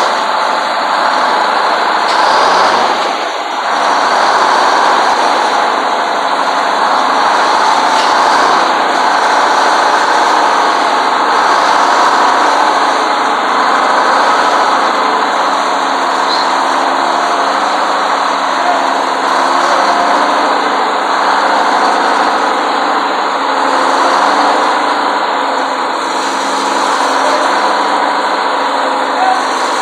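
1954 LeTourneau-Westinghouse Tournarocker's GM Detroit two-stroke inline-six diesel with a blower, running steadily and loud, with a brief dip about three seconds in.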